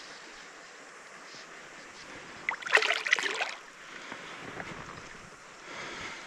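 Steady rush of a shallow, rocky river, with a burst of water splashing and sloshing that lasts about a second, starting two and a half seconds in. Softer sloshing follows near the end.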